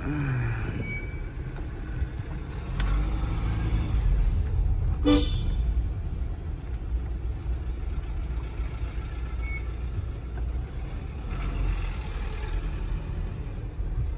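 Skoda Rapid diesel car's engine and tyres heard from inside the cabin as it moves slowly, a steady low rumble. A brief car-horn toot sounds about five seconds in.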